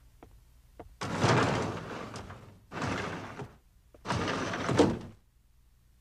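Classroom sliding door rolling along its track in three noisy pushes, the last ending in a bang as it slams shut. A couple of soft, evenly spaced taps come first.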